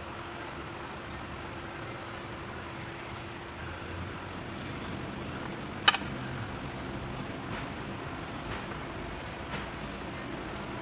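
Steady low background hum and rumble, with one sharp click about six seconds in and a few faint taps near the end.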